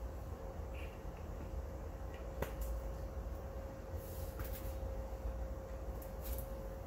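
Steady low hum with a faint steady tone over it. One sharp click comes about two and a half seconds in, and a few brief soft rustles follow later.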